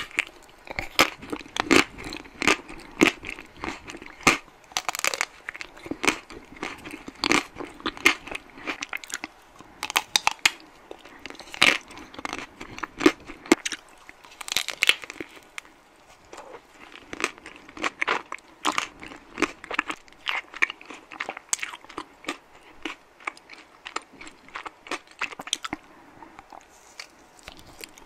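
Close-miked eating of a chocolate-coated ice-cream bar: the chocolate shell cracks crisply with each bite, with chewing in between. The sharp crunches come many times over, in clusters.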